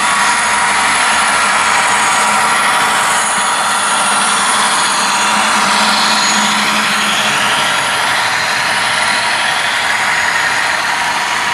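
Model diesel-hauled freight train running along the layout track: a steady rolling, whirring noise of wheels and motor, swelling slightly as the train passes close by.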